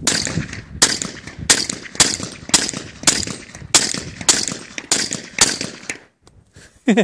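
Suppressed Glock 22 .40 pistol with a SilencerCo Osprey silencer firing a steady string of about ten shots, roughly one every half second or so, each crack followed by a short echo; the shooting stops about six seconds in.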